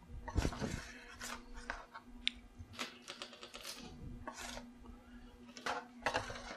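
Metal spatula scraping under baked cookies on an aluminium baking sheet and setting them down on wire cooling racks: a string of irregular scrapes and light clicks.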